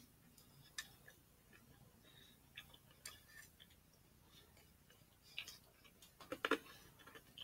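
Faint, scattered mouth clicks and handling sounds of someone chewing and holding a fried steak biscuit sandwich, with a short louder cluster of crackles near the end as the biscuit is pulled open.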